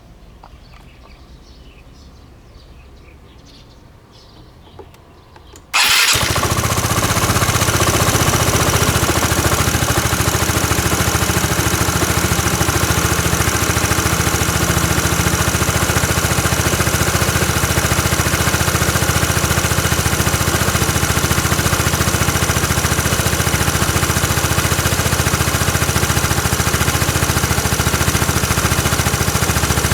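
Fourth-generation Yamaha Cygnus-X scooter's single-cylinder engine starting suddenly about six seconds in, then idling steadily. The owner takes the engine's running sound for an abnormal noise (異音).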